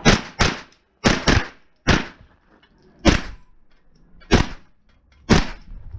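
Pistol-caliber carbine firing eight shots: two quick pairs, then four single shots spaced about a second apart.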